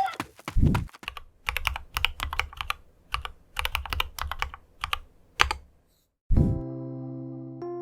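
Mechanical keyboard with lubed Holy Panda tactile switches typed on in uneven bursts of clacky keystrokes with a deep thock under them. Near the end, a low thump and soft electric-piano music start.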